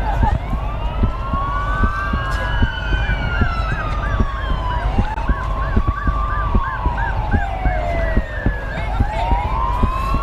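Several emergency-vehicle sirens sounding at once, their slow rising and falling wails overlapping, with one switching to a fast yelp of about three chirps a second for several seconds in the middle. A steady low rumble lies under them.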